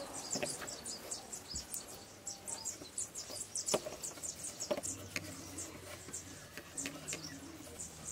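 Short, high chirps from outdoor wildlife repeating a few times a second, with a few soft clicks as hands handle the line-wrapped wooden spool.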